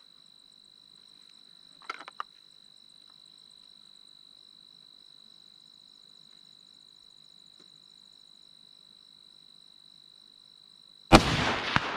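Crickets chirping steadily. Near the end, a single sharp crack from a Franchi Momentum All-Terrain Elite bolt-action .308 rifle, trailing off in an echo.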